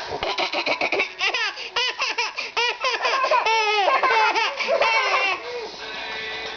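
Baby laughing hard in a string of quick, high-pitched bursts, quieter near the end.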